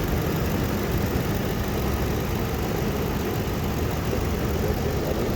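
Ford car engine idling steadily with the air-conditioning compressor running, as the AC system is being charged with refrigerant gas.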